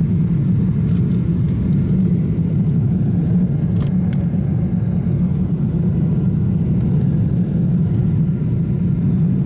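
Jet airliner engines and airflow heard from a cabin window seat over the wing: a steady, deep noise, with two faint clicks about four seconds in.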